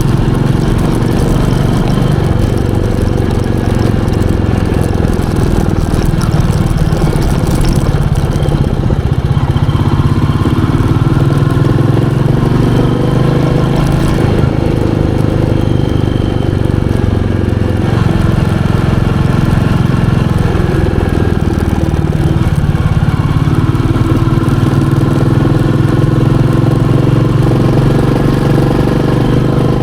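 Royal Enfield Meteor 350's 349 cc single-cylinder engine running, with the engine note rising and falling at times.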